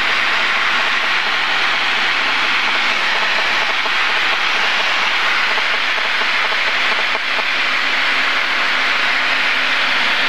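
Cabin noise of a single-engine light aircraft on final approach: the steady drone of engine and propeller mixed with the rush of airflow, heard from inside the cockpit.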